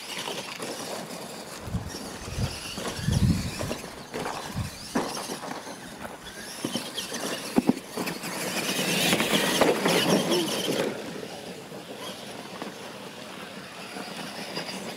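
R/C monster trucks racing on a dirt track, their motors and tyres churning over loose dirt, with a few heavy thumps about two to three seconds in as the trucks come down off the wooden ramps, and sharp knocks later.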